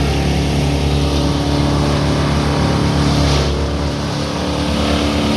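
Engine of a wood chipper running steadily.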